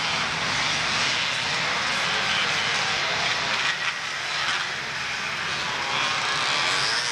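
Several motocross motorcycle engines running hard together as a pack of riders races by, a steady, dense buzz that rises and falls slightly without letting up.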